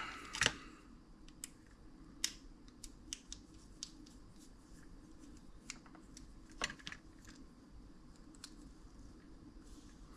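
Scattered small clicks and taps of hand tools and parts being handled on an electronics workbench, with a sharper click about half a second in and another about two-thirds through, over a faint steady low hum.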